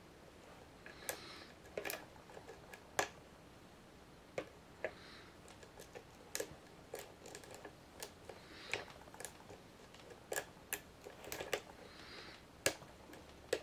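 Faint, irregular sharp clicks and a few short scrapes of a lock pick and tension wrench working the pins inside the keyway of a Master Lock No. 570 padlock.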